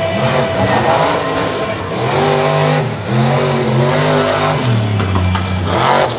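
Mega truck engine revving hard as the truck drives the dirt track, its pitch climbing and falling several times, dipping low about five seconds in, then rising again.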